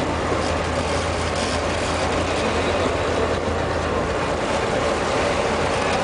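Boat engine running steadily at trolling speed, a low drone under the rushing noise of the churning wake.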